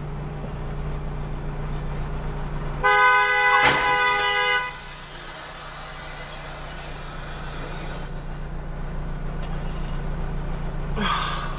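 A two-tone vehicle horn sounds once for about two seconds, starting roughly three seconds in, over a steady low engine hum.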